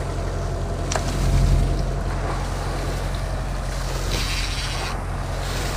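Boat engine running steadily with a low hum, with two short clicks early and a brief hiss about four seconds in.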